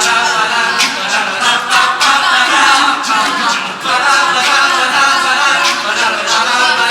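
A cappella group singing in harmony, several voices at once, without instruments.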